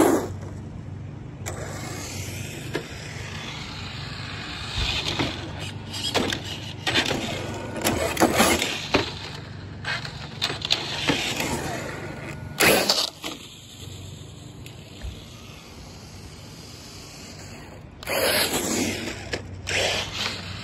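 Brushless Traxxas TRX-4 RC truck rushing past at the start, then its electric motor and tyres on pavement heard again in bursts of acceleration that rise and fall, loudest about eight and thirteen seconds in and again near the end.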